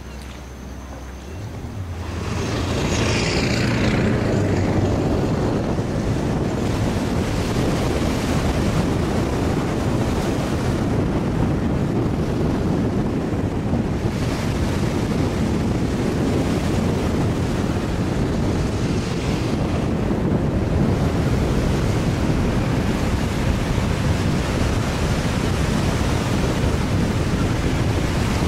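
Wind blowing hard across the microphone, with small waves washing onto the shore of choppy open water. It comes in loudly about two seconds in, after a quieter start, and then holds steady.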